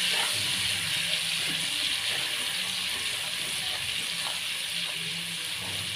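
Chopped garlic sizzling in hot oil in a wok while it is stirred with a spatula that scrapes the pan now and then; the steady hiss eases slowly.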